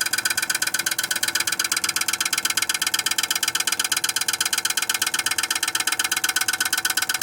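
Viessmann Vitocal 151-A heat pump running with a loud, rapid, even rattling clatter, many strokes a second, caused by ice accumulating in the unit even with heat tape fitted.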